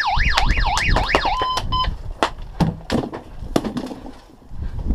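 An electronic alarm warbles loudly, its pitch sweeping up and down about three times a second, then gives two short beeps and stops about a second and a half in. A few sharp clicks follow.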